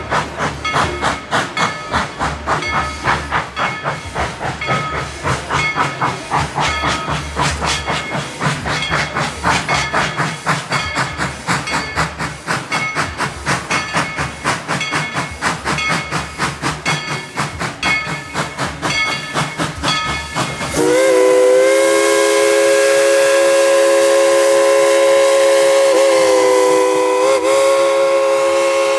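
Steam locomotive working under way, its exhaust chuffing in an even, rapid rhythm. About twenty seconds in, it sounds a long, steady chime steam whistle blast of several notes together, with a brief dip in pitch partway through.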